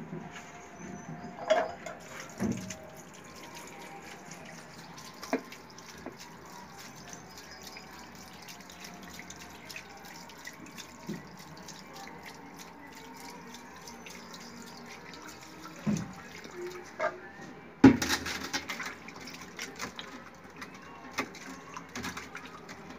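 Raw beef chunks being washed by hand in a steel dish at a kitchen sink: water splashing and sloshing, with sharp clanks of the metal dish now and then, the loudest about three-quarters of the way through.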